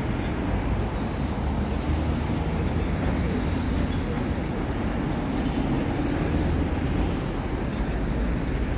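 Steady city road traffic: cars driving through a wide intersection, with engine and tyre noise.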